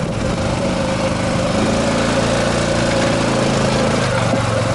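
Quad bike engine running under load as the ATV crawls over large boulders, its note rising slightly about a second and a half in.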